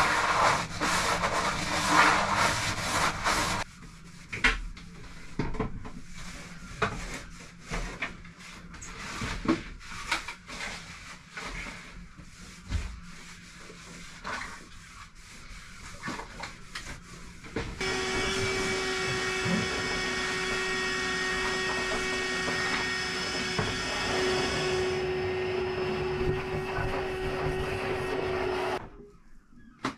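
Wet-and-dry vacuum running steadily with a whining hum as its nozzle is worked over the bilge floor, then switched off abruptly near the end. Before it starts there are a few seconds of loud noise, then scattered rubbing and knocking.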